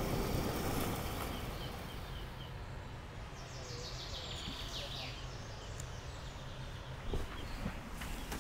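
Background music fades out in the first second, leaving a low steady ambient hum with birds chirping and calling a few times. A soft knock comes near the end.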